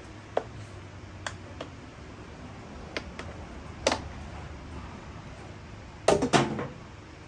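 Scattered clicks and knocks of small hard parts and tools being handled on a workbench, a few light taps spread apart and a louder double clatter near the end, over a steady low hum.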